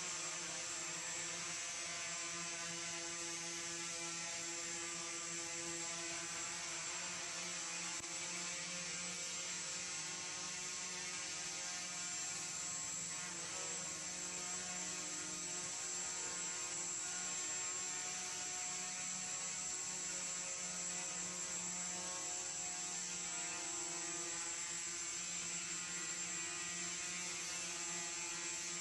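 Multirotor hexacopter's six motors and propellers humming steadily in hover, a dense buzz of several pitches that drift gently up and down as the motors adjust thrust, with a thin high whine over it.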